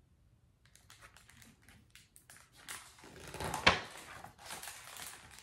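Pages of a hardcover picture book being turned by hand: paper rustling and crackling, with one sharp page flap a little past the middle.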